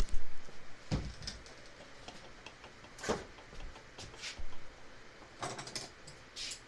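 Handling noises close to the microphone: a few scattered knocks and clatters as tools and objects are moved about on the workbench, the loudest right at the start and a quick cluster near the end.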